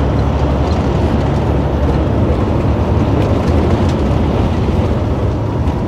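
Steady drone of a semi truck running at road speed, engine and tyre noise heard inside the cab.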